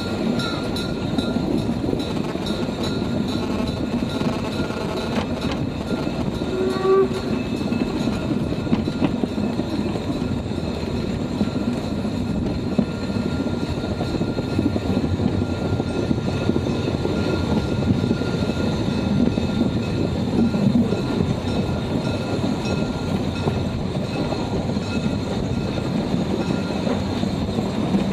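A steam-hauled narrow-gauge train running, heard from an open car: a steady rumble of wheels on rails, with a brief higher tone about seven seconds in.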